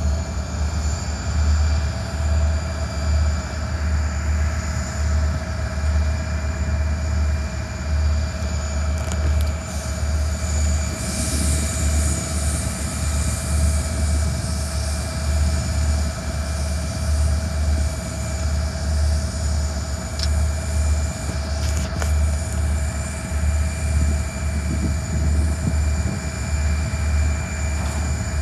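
Diesel freight locomotives running at a distance, a steady engine whine holding throughout, under a heavy low rumble of wind buffeting the microphone. A faint single click comes about two thirds of the way through.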